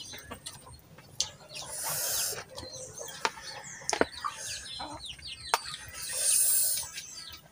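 Chickens clucking, with several sharp clinks of a metal spoon on dishes and the scrape of a spoon scooping rice out of a pan.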